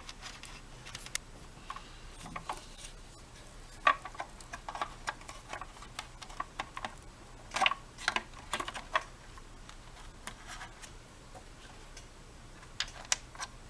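Irregular light clicks and taps of plastic vacuum-cleaner parts and wiring being handled and pressed into place, coming in small clusters.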